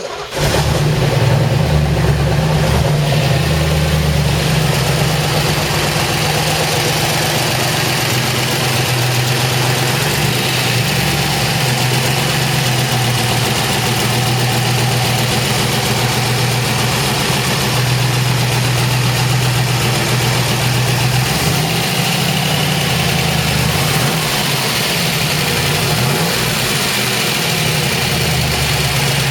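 1969 Camaro Z/28's 302 V8 idling steadily, just after starting.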